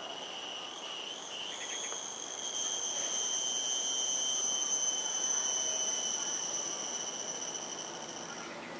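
An insect's steady, high-pitched whine, growing louder about two seconds in and fading away near the end.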